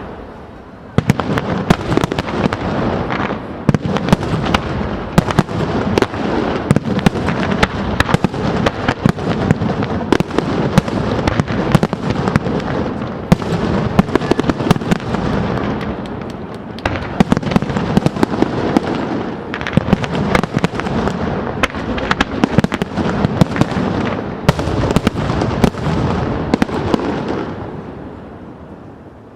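A fireworks barrage: a dense run of rapid loud bangs over continuous crackling. It starts about a second in and dies away near the end.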